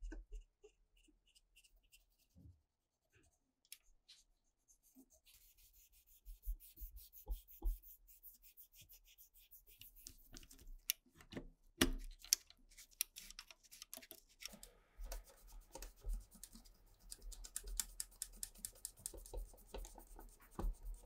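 Cotton swab scrubbing and small metal parts clicking and scraping as the mechanism of a 1975 Philips tape recorder is cleaned and handled. It starts with sparse light ticks and turns into dense scratching from about five seconds in, with a couple of louder clicks around the middle.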